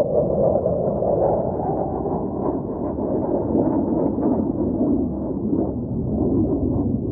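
Low roar of two military jets flying past overhead, a steady rumble that slides lower in pitch as they go by.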